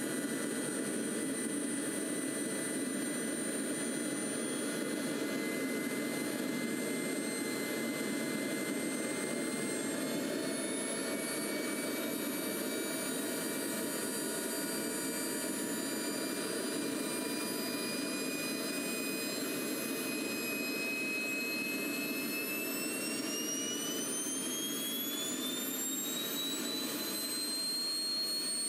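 Frank Turbine model jet turbine restarting on a thrust test stand: a steady whine over a rushing hiss. About three-quarters of the way through, the whine climbs steadily in pitch as the turbine ramps up toward speed.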